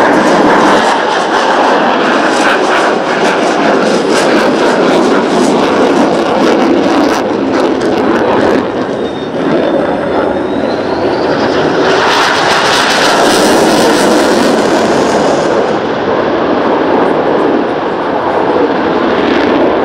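Jet noise of Dassault Rafale M fighters, with their twin Snecma M88 turbofans, flying by: a loud, steady rush with a faint rising whine about ten seconds in. It is brightest around twelve to fifteen seconds in, then turns duller as the jets move away.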